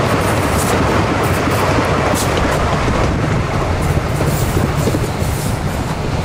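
Narrow-gauge sugar cane train running by on its 2 ft tramway track, a steady rumble of wheels and cane bins with faint clicks from the rails, easing a little near the end as it draws away.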